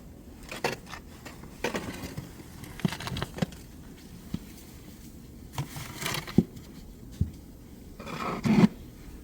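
Scattered knocks and scrapes, irregular and short, with a louder scuffing burst near the end.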